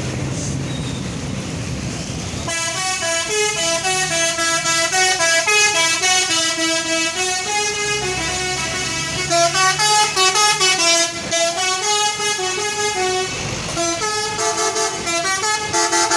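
Indonesian 'telolet' musical bus horn playing a tune of quickly changing notes, with runs of rapid staccato toots partway through and near the end. A low steady engine hum comes first, for a couple of seconds before the horn starts.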